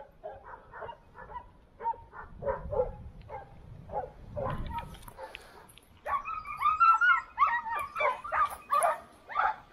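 Hunting dogs barking and yelping in quick bursts, two or three a second, faint at first and much louder from about six seconds in, several voices overlapping as the hounds work a wild boar's bed in the thicket.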